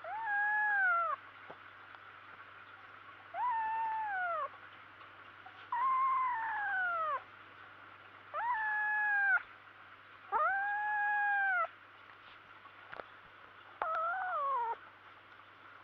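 Kitten yowling over the feather toy it has caught: six long, drawn-out calls, about a second each, every one rising and then falling in pitch. This is the possessive call of a kitten guarding its prey.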